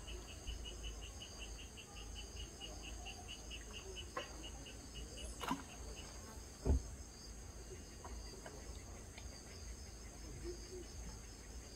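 Crickets chirping, one chirping steadily about four times a second until about halfway, over a continuous high insect trill. Two dull knocks a little past halfway, the second a low thump and the loudest sound.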